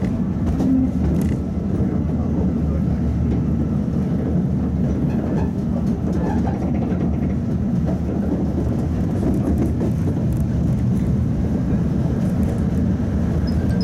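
Modernized Tatra T3 tram running along the track, heard from on board: a steady low rumble of the car's running gear on the rails.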